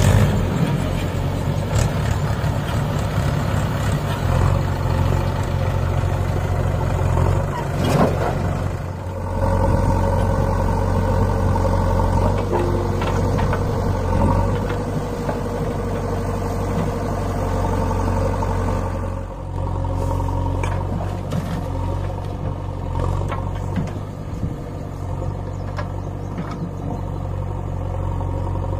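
Diesel engines of a Mahindra 585 DI four-cylinder tractor and a JCB backhoe loader running steadily, with a few knocks and clatter.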